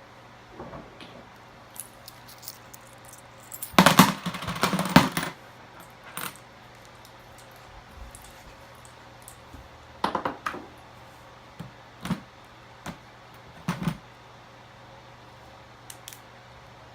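Small hard objects clattering and rattling as they are handled, in a long burst about four seconds in and shorter rattles and clicks later.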